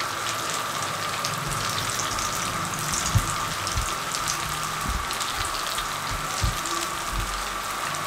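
Potato bites deep-frying in hot oil in a frying pan, just added: a steady crackling sizzle of bubbling oil with a few brief louder pops.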